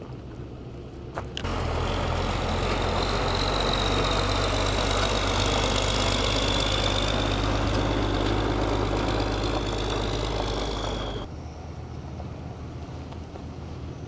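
A vehicle engine running close by, a steady low drone with a faint high whine over it. It starts suddenly about a second and a half in and cuts off suddenly about eleven seconds in.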